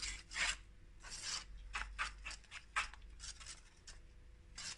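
Metal spiral whisk stirring thick chocolate pudding in a non-stick pot, scraping the pot with short, irregular strokes about two to three times a second.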